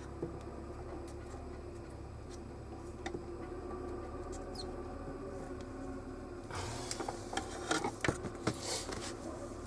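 Faint steady hum, then about two-thirds of the way in a cluster of sharp clicks and short scratchy scrapes from handling the circuit board and tools on a workbench.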